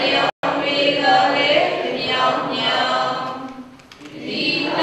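Congregation chanting a Buddhist recitation together in unison, in long rising and falling phrases. The sound drops out for an instant just after the start.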